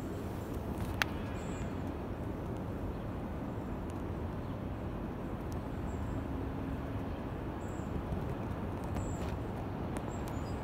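Steady low rumble of outdoor background noise, with one sharp click about a second in.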